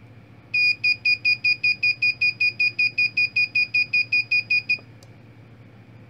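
Buzzer driven by a 555 timer circuit beeping rapidly and evenly, about five high-pitched beeps a second, then cutting off suddenly, followed by a single click.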